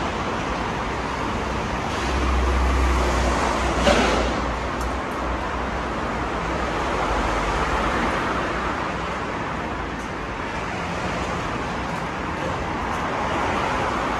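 Busy elevated subway platform ambience: a steady hum and bustle, with a low rumble swelling about two seconds in and easing off by about five seconds, and a brief knock near its peak.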